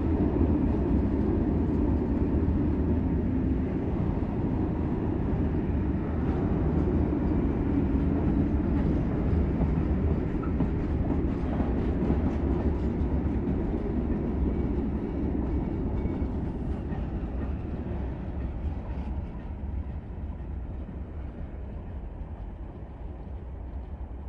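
Freight train of covered grain hopper wagons rolling past: a steady low rumble of steel wheels on rail with faint clicks. It fades over the last several seconds as the train draws away.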